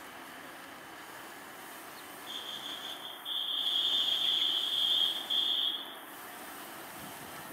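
A steady, high-pitched tone starting about two seconds in and lasting about four seconds, with two brief breaks, over low background noise.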